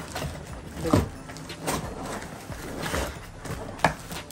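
Plastic wrapping rustling and cardboard box flaps moving as plastic-wrapped cookware pots and lids are handled in the box, with a few knocks and bumps; the sharpest comes about a second in and another near the end.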